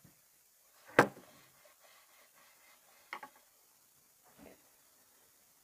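Objects being handled on a hard surface: one sharp knock about a second in, a lighter double tap around three seconds in, and a faint thud later.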